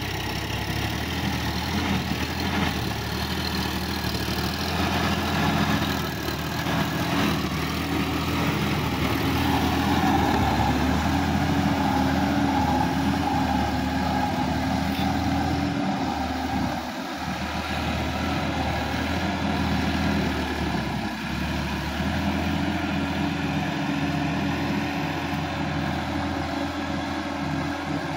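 Sonalika DI-50 RX tractor's diesel engine running steadily as the tractor works through a flooded paddy field, its engine note rising and falling a little.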